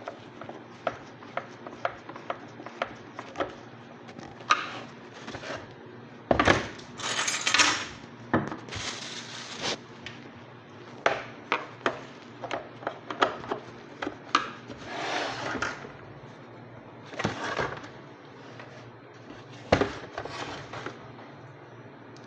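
Hard plastic parts of a vacuum cleaner handled and fitted together during reassembly: scattered light clicks and knocks, with a few longer rubbing scrapes, the loudest a few seconds in.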